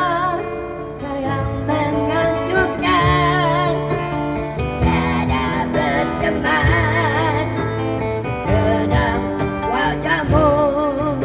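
Acoustic guitar accompaniment with a singer drawing out long wavering notes with vibrato. The melody runs between sung lines of a Malay ballad.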